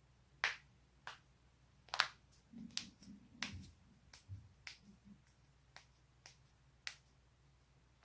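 Spinal joints cracking: about a dozen sharp, separate pops at an uneven pace, a few closely paired, with a few soft low thumps in the middle.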